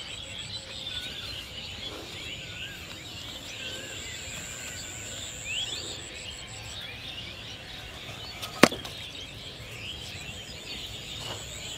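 Outdoor pond-side ambience: many small bird chirps and a few whistled bird notes over a steady high-pitched insect drone. A single sharp click comes about eight and a half seconds in.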